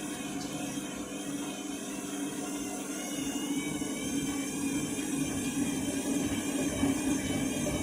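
Washing machine's drum and motor on the final spin at 1200 rpm, running as a steady hum with a gently wavering whine above it that grows a little louder from about three seconds in. The spin is struggling with an unbalanced load.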